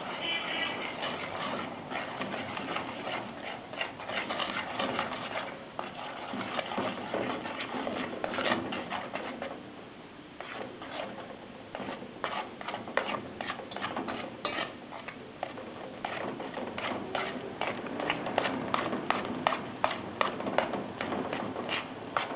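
Utensil working thickening arrowroot starch in a cooking pot, with quick, irregular knocks and scrapes against the pot that come faster and sharper in the second half.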